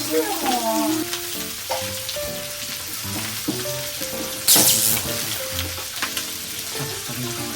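Skewered meat and vegetables sizzling on a hot plate, a steady hiss with a brief, much louder hiss about halfway through. Light background music plays underneath.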